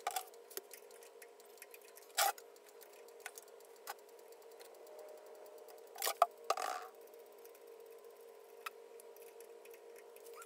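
A few sharp clicks and knocks of a screwdriver and hands working at a tractor carburetor while it is being removed, the loudest about two seconds and six seconds in, over a faint steady hum.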